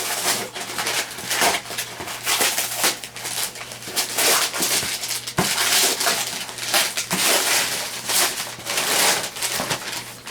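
Paper wrapping being torn and crumpled off a cardboard parcel: a long run of irregular rustling rips, with one sharper knock about halfway through.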